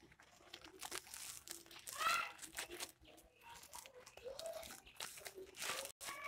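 Woven plastic sack rustling and crinkling in irregular bursts as its mouth is handled and stitched shut with a needle and twine. About two seconds in, a short high-pitched call rises over the rustling.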